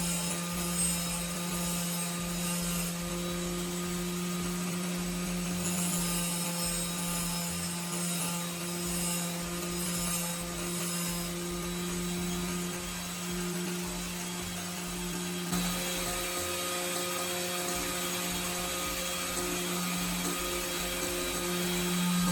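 A small electric power tool motor running steadily with a constant hum, with a high hiss that comes and goes over it.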